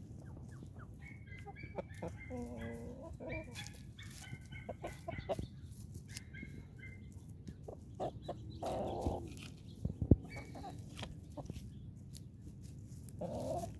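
Backyard chickens clucking and calling in short bursts at close range. A sharp knock stands out about ten seconds in.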